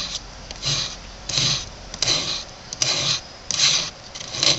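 A knife blade scraping a stick of fatwood in repeated rasping strokes, about one every 0.7 seconds, shaving off fine dust for tinder.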